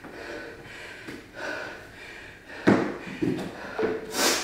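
Hard, rhythmic breathing of a person exercising. From about halfway, several sharp thumps follow, feet landing on a step bench, with a loud hissing breath near the end.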